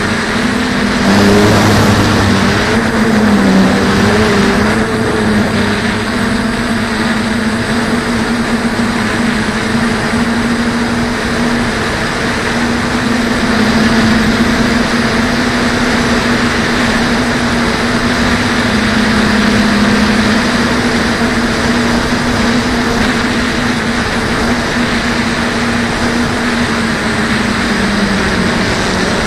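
DJI F450 quadcopter's motors and propellers humming steadily in flight, heard from its onboard camera; the pitch wavers for a few seconds near the start, then holds steady.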